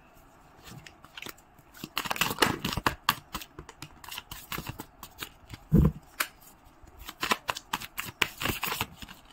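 Tarot cards being shuffled and handled, short clicks and snaps coming in bursts, with one soft thump about six seconds in.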